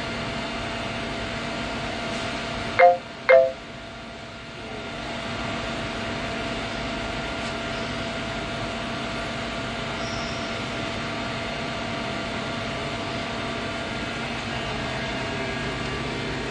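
Steady hum with a few held tones from a powered-up Mori Seiki CL-20A CNC lathe standing at rest. About three seconds in come two short, loud beeps half a second apart.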